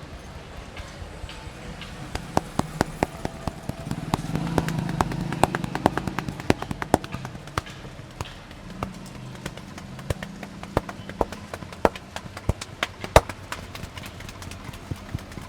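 A barber's hands slapping and tapping on the head and shoulders during a head massage: an irregular run of sharp percussive strikes, several a second, starting about two seconds in. A low rumble swells and fades around the middle.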